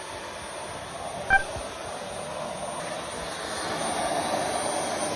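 Vacuum cleaner running steadily with a thin high motor whine, and one short electronic beep about a second in; the suction noise grows louder toward the end.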